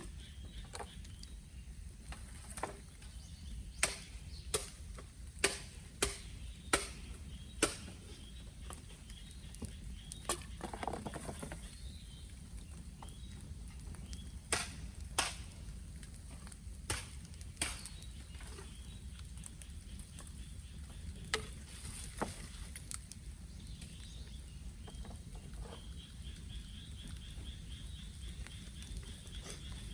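Bamboo burning in an open bonfire: sharp, irregular crackles and pops over the low, steady rumble of the flames.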